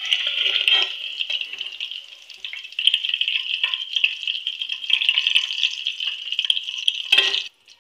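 Paneer cubes sizzling in hot oil in a kadhai, with a perforated metal spoon clicking and scraping against the pan as the pieces are lifted out. The sizzle cuts off suddenly near the end.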